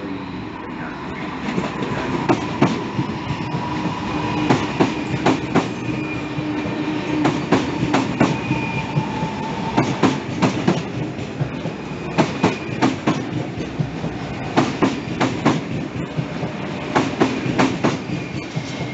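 ČD Pendolino electric train rolling slowly past at close range, its wheels clacking over rail joints in groups every two to three seconds as each car goes by, over a steady rumble with a thin squeal that comes and goes.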